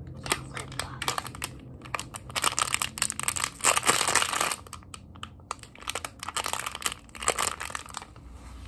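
Plastic candy wrapper crinkled and crumpled between the fingers: dense, irregular crackling, loudest and thickest just before the middle, a brief pause, then more scattered crinkles.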